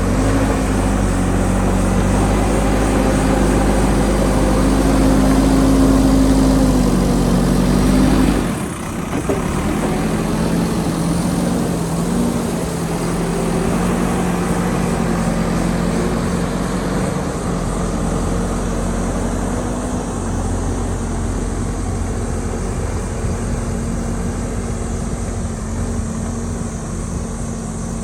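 JCB backhoe loader's diesel engine running steadily. About eight seconds in, its deep low part drops away abruptly and the level dips, then it runs on at a steady pitch.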